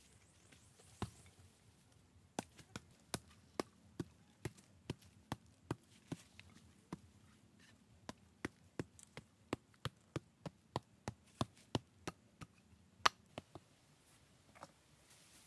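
Repeated chopping strikes on wood, about two to three a second, with a short pause partway through and one louder strike near the end.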